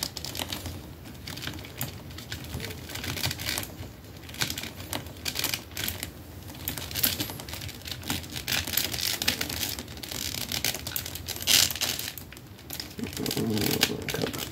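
Handling noise from a large plastic action figure: irregular clicks, taps and rubbing of hard plastic and soft rubbery parts as a piece is worked and pushed to plug it back into place.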